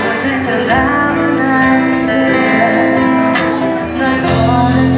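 Live band music: a woman singing a Brazilian song into a microphone, accompanied by a strummed acoustic guitar.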